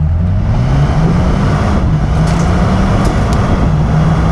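2020 Acura RDX A-Spec's K20C4 2.0-litre turbocharged four-cylinder pulling at speed. Its note rises over the first second or so and then holds, under heavy wind and tyre noise on an exterior-mounted camera.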